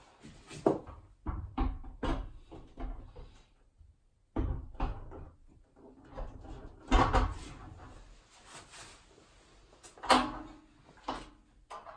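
Panel radiator being lifted and hooked onto metal wall brackets: a series of clunks and knocks, the loudest about seven and ten seconds in.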